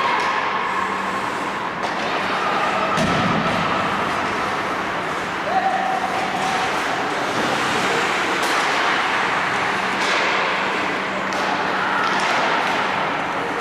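Hockey game in play: sharp knocks of sticks and puck every few seconds over a steady hiss of rink noise, with players' voices calling out.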